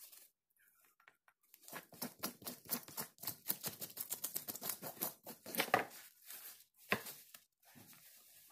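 Knife scraping the scales off a large raw fish: quick rasping strokes, several a second, with scales clicking loose. They start about two seconds in.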